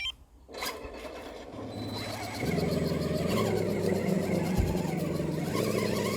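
Axial SCX10 RC crawler's electric motor and geared drivetrain whining as the truck sets off up a steep slope. The sound builds over the first couple of seconds, then holds as a steady, louder whine. A single click comes right at the start.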